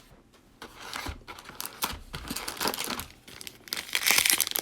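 Cellophane wrapper of a Prizm football cello pack crinkling and tearing as it is opened, in quick rustles that grow denser and louder near the end.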